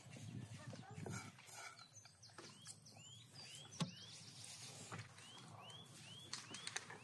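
Soft wet rustles and clicks of hands working stuffing into a raw lamb carcass, with one sharp click about four seconds in. Over this, from about a third of the way in, a series of short high calls that rise then fall repeats about twice a second.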